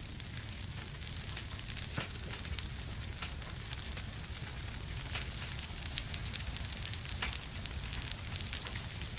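Wood fire burning in a fireplace: a steady low rumble and hiss of flames with frequent sharp pops and crackles, coming more thickly in the second half.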